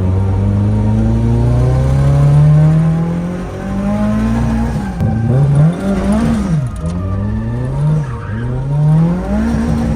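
Nissan Laurel C33's engine revving hard. The revs climb steadily for about three and a half seconds, then rise and fall sharply several times in quick succession.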